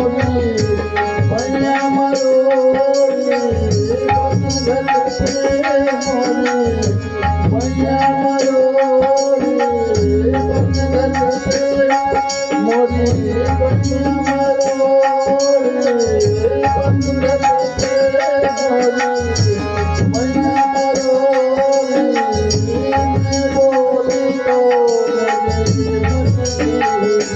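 Bhajan devotional music: hand drums beating a steady rhythm under a melody that glides up and down over a held note.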